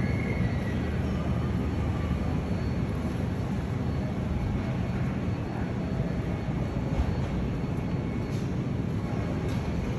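Supermarket background: a steady low hum and rumble from the store's machinery, such as air handling and refrigerated display cases, with a few faint distant clinks in the second half.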